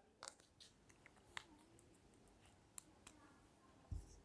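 Near silence: room tone with three faint, sharp clicks spread a second or so apart, and soft low thumps near the end.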